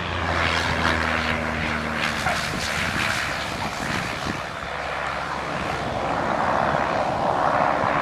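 Airplane engine running, a loud steady rush with a low hum underneath that fades after about three seconds.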